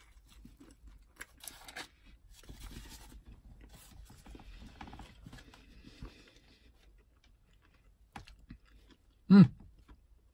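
A person biting into and chewing a breakfast sandwich on an English muffin, with soft, scattered mouth and chewing sounds. Near the end comes one short, loud hum from the eater's voice, the loudest sound.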